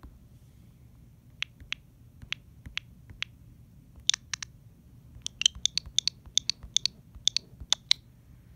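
Sharp, separate clicks: a few spaced ones, then a quicker run of louder clicks from about four seconds in until near the end, over a faint low hum.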